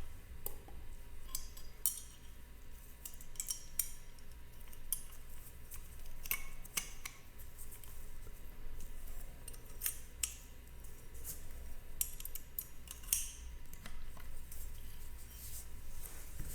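Small metal parts of a Desert Eagle pistol clicking and clinking as they are handled, in irregular sharp taps with a faint steady low hum beneath.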